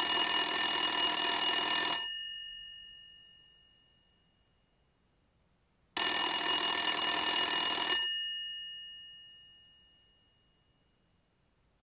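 Old-style telephone bell ringing twice: two rings of about two seconds each, six seconds apart, with the bell tone dying away after each ring.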